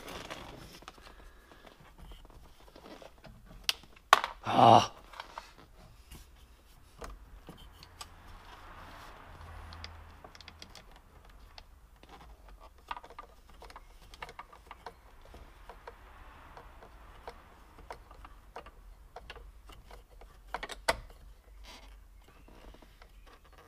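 Scattered small clicks and rattles of hands fitting a plastic gauge pod and its cables onto a car's steering column, with a louder short noise about four seconds in and another near the end.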